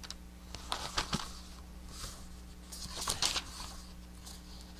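Quiet paper rustling and a few soft handling clicks over a low steady hum.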